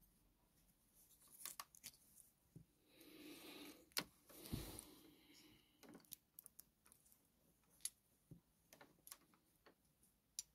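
Faint, scattered clicks and taps of small plastic Lego bricks and figure parts being picked up, handled and set down on a tabletop, with a soft rustle about three to five seconds in.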